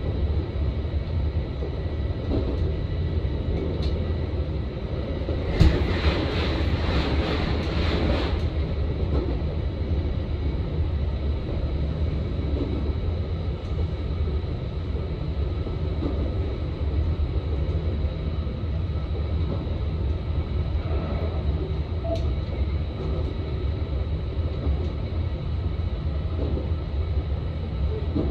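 Electric train running along the line, a steady low rumble of wheels on rail. About five and a half seconds in, a sudden louder rushing noise lasts for roughly three seconds.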